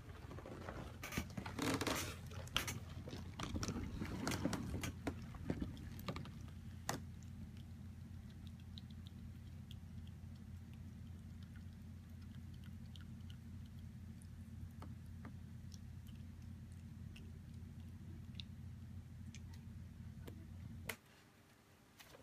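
A cat purring close up: a steady low rumble that cuts off suddenly near the end. During the first few seconds there is rustling and scratching of fur and paws.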